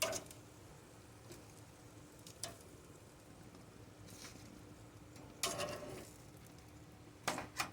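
Faint handling sounds at a grill: a few soft clicks and short rustles over a low steady hum.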